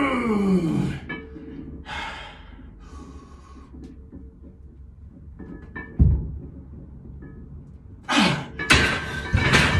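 A man straining through a heavy barbell incline bench press set. A groan falls in pitch in the first second, hard breaths follow, a dull thump comes about six seconds in, and a louder burst of straining and breathing comes near the end.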